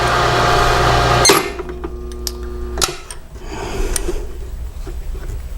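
A small electric motor running, switched off about a second and a half in and spinning down for another second or so, followed by a few light clicks.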